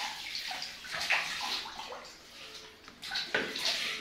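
Water spraying from a handheld shower head into a plastic basin of bathwater, splashing and sloshing, with louder splashes about a second in and again near the end.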